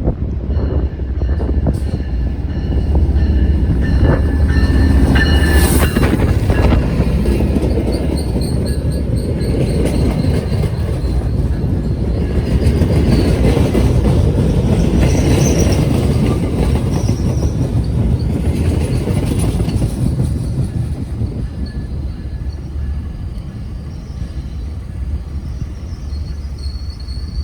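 A train rolling past with a steady rumble, its steel wheels squealing on the rails in thin high tones that come and go.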